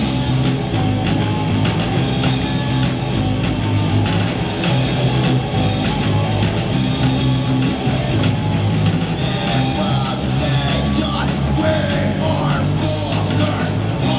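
A live rock band playing a hard, loud rock song on electric guitars and a drum kit.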